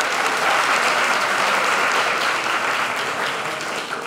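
Audience applauding, with many hands clapping together; the applause dies away near the end.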